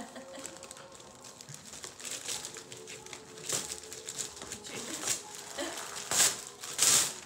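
Wrapping paper crinkling and tearing as a small dog rips open a wrapped present, in several short bursts of rustling; the loudest comes near the end.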